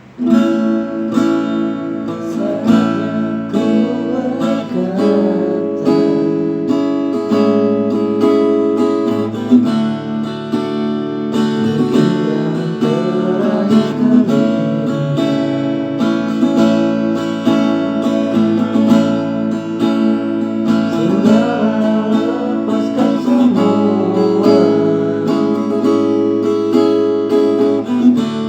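Strummed guitar music, starting abruptly at the outset and playing on steadily, with a sliding melody line over the chords now and then.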